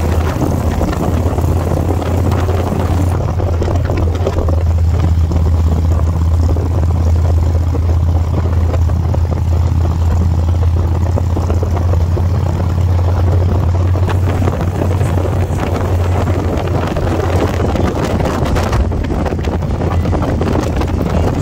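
Motorcycle engine running steadily at cruising speed with wind rushing past, heard from on the bike behind its fairing: a constant low drone under an even rush of air.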